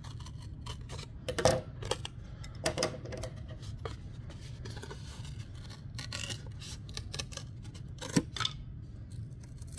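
Scissors cutting through a thin sheet of wood along a traced line: a run of irregular crisp snips and crunches as the blades close on the wood.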